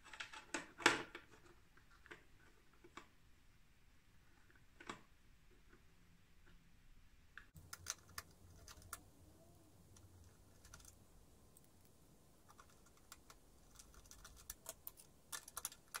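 Small plastic clicks and taps from a rotary telephone dial mechanism being handled and fitted into a plastic phone housing. There is a quick cluster of clicks about a second in, scattered single clicks after it, and another run of clicks near the end.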